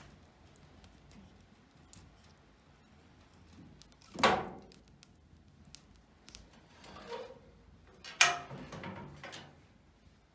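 Wood fire crackling faintly with small scattered pops inside a cast-iron wood stove, then two loud metal clanks about four seconds apart, the second as the cast-iron firebox door is swung shut and latched.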